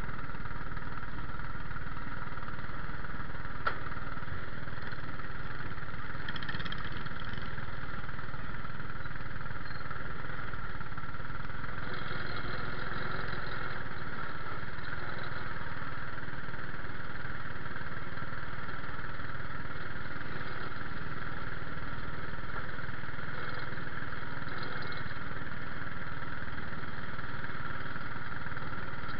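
A small racing car's engine idling steadily, heard from on board the car.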